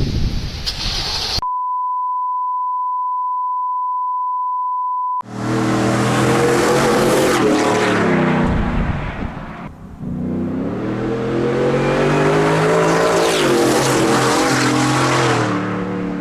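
A short burst of wind-like noise, then a steady high beep tone for about four seconds. Then the truck's Whipple-supercharged V8 runs loud through its headers and XForce active exhaust, pitch climbing and falling in two long pulls with a brief drop in between.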